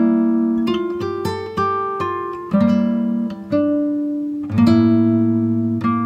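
Background music of a plucked acoustic guitar: notes and chords ring and fade, with a new one struck roughly every second.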